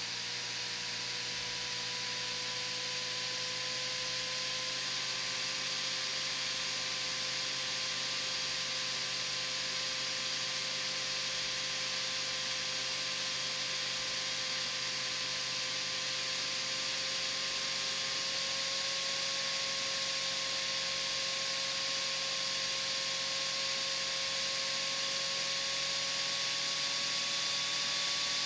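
Sony VAIO laptop's cooling fan running: a steady airy whir with a whine that slowly rises in pitch as the fan gradually speeds up.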